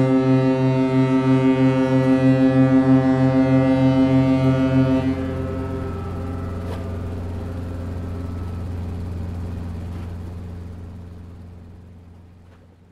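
Deep ship's horn blast, its tone pulsing about two and a half times a second for some five seconds, then settling into a low drone that slowly fades away.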